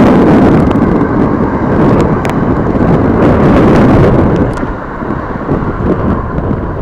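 A train running by with a loud, steady rumble and scattered clicks, mixed with wind buffeting the microphone.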